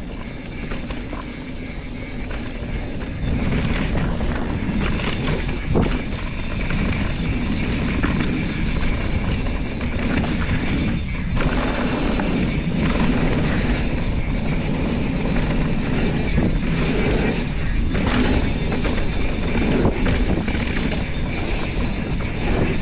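Rush of wind on the microphone and mountain bike tyres rumbling over a dirt trail, with scattered knocks and rattles from bumps; it grows louder over the first few seconds and then holds steady.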